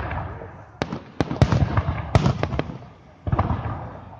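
Aerial fireworks shells bursting in a rapid series of sharp bangs, each trailing off in echo.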